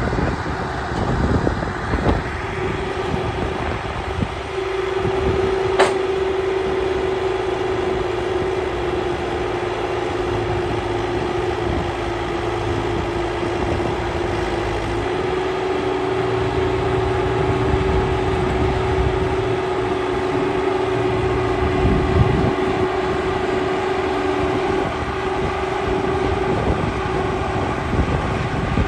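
A vehicle engine idles steadily with a constant droning whine over a low hum. There is a single sharp click about six seconds in.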